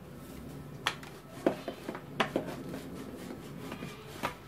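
A steel rolling pin with green plastic handles being taken up and rolled over a round of dough on a hard table top: a series of sharp clicks and knocks, several close together in the first half and one more near the end, over a low steady hum.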